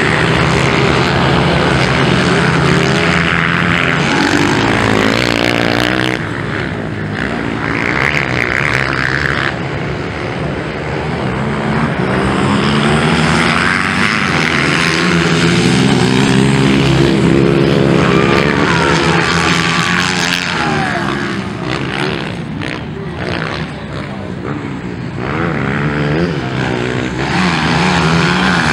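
Several motocross dirt bikes' engines running hard around the track, their pitch repeatedly rising and falling as the riders rev, accelerate and back off.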